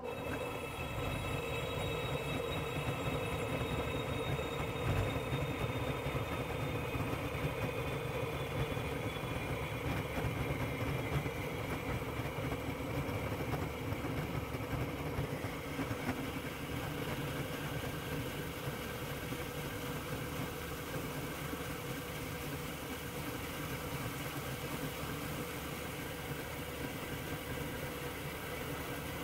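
King horizontal metal-cutting bandsaw running, its 14 TPI bi-metal blade cutting slowly through half-inch-thick steel angle iron: a steady, even machine sound with a high tone that sinks slightly over the first several seconds.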